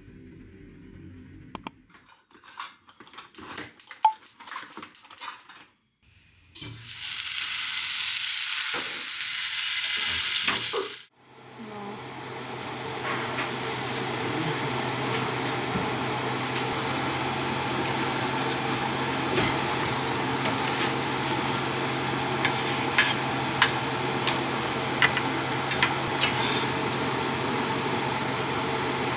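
Kitchen sounds: a few light taps and clicks, then about four seconds of loud, hissing running water that stops suddenly. After that comes a steady sizzle of food frying in a pan over a low hum, with occasional small clicks of utensils.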